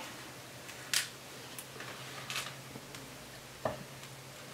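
A few soft clicks and taps from metal kitchen tongs as food is picked up, the last one a light knock of the tongs against a cast iron skillet.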